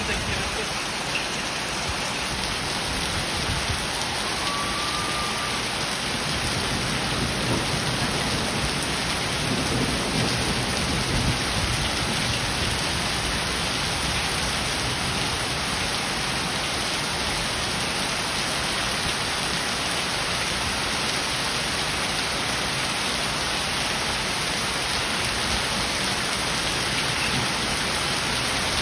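Heavy rain mixed with falling hailstones pelting paving, a road and a garden: a dense, steady hiss of rain on hard surfaces.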